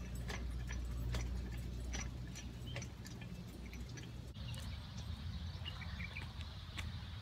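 Light metallic clicks about twice a second from the pivots of an outdoor air-walker exercise machine being swung, over a steady low rumble. About four seconds in the sound changes to a quieter outdoor background with a few short high chirps.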